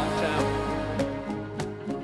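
Background music: sustained tones with a few sharp percussive hits in the second half.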